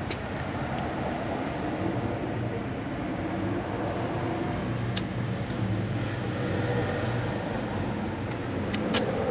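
Street traffic with a motor vehicle's engine running steadily nearby, a low hum over a noise that rises and falls a little. A few sharp clicks come about a second in, about five seconds in and near the end.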